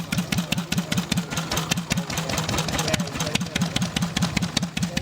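An engine idling with an even, fast chugging beat of about six or seven pulses a second.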